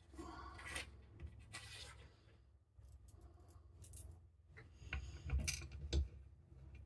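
Small screws and washers being handled and fitted into mounting holes: short scraping and rubbing sounds with scattered light clicks, and a few duller knocks near the end.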